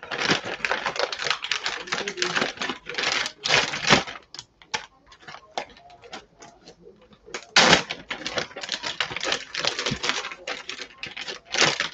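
Clear plastic zip-lock freezer bags crinkling as they are handled, opened out and stood upright. There are two long bouts of dense crackling with a sparser run of ticks between them.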